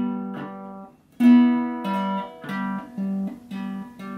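Guitar notes plucked one at a time, about eight in all, each starting sharply and fading: an attempt at playing the C scale.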